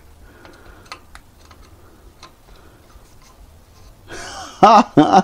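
Faint clicks of a screwdriver tip seating in the Phillips rotor retaining screw on the brake rotor hub, then about four seconds in a brief scrape as the screw turns, followed by a short voiced exclamation.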